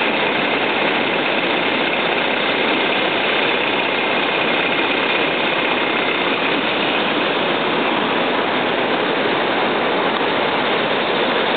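The swollen, muddy Imera river rushing and churning through a concrete channel: a loud, steady rush of water without a break.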